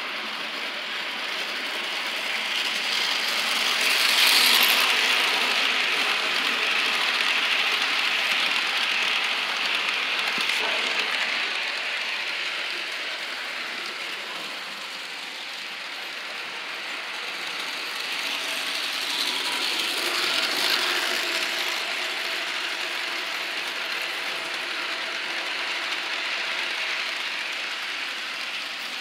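Model train running on its track, the locomotive pulling passenger cars: a steady mechanical whirr of the small motor, gears and wheels on the rails, growing louder twice as the train comes near.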